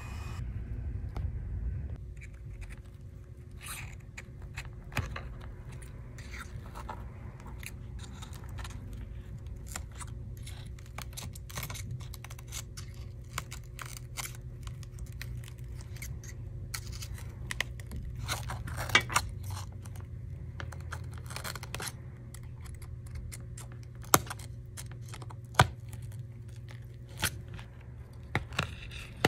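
Shattered iPad screen glass crackling and crunching as a thin pry tool is worked under its edge and the screen is lifted from the frame, with many small sharp clicks and a few louder snaps in the second half. A steady low hum runs underneath.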